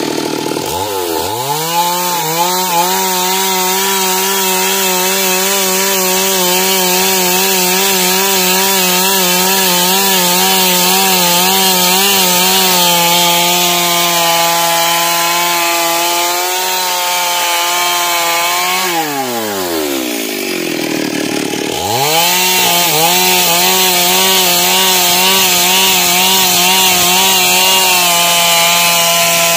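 Stihl chainsaw at full throttle rip-cutting a log lengthwise along the grain, the engine note wavering under load. About 19 seconds in the throttle is released and the engine drops to idle for a couple of seconds, then it revs back up and the cut resumes.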